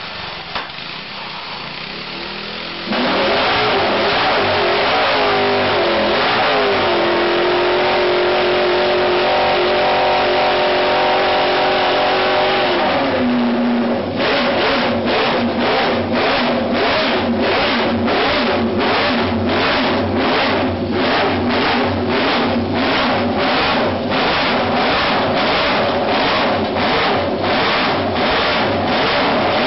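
Homebuilt multi-cylinder motorcycle engine coming to life about three seconds in and running loudly, its pitch wavering and gliding at first. From about halfway the engine note pulses evenly, a little under twice a second.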